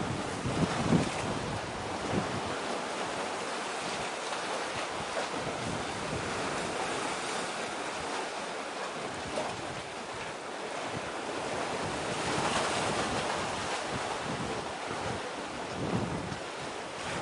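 Wind blowing over the camera's microphone over a steady hiss of wind and sea. It buffets in low gusts about a second in and again near the end.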